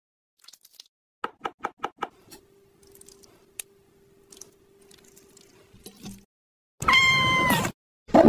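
A cat meowing once, a single pitched call just under a second long, the loudest sound here, coming near the end. Before it there are a few quick light taps and clicks over a faint steady hum.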